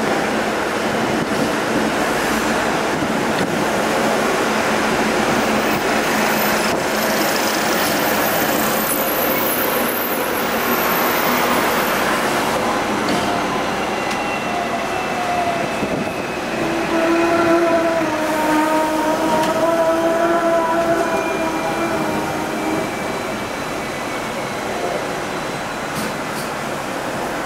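Hong Kong double-decker tram running along its street track, a steady rumble and rattle of wheels on rails mixed with road traffic. A wavering whine rises over it for several seconds past the middle.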